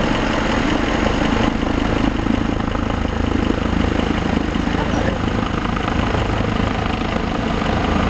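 Medevac helicopter flying in low overhead, its rotor and turbine engine making a steady, loud drone.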